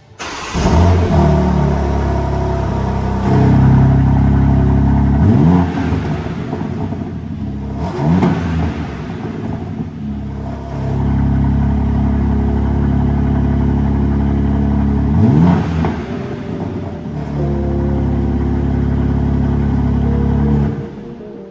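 BMW M car's twin-turbo engine and exhaust being revved while parked. It comes in loudly, then gives several quick blips that sweep up in pitch, with stretches held at raised revs in between, and drops back near the end.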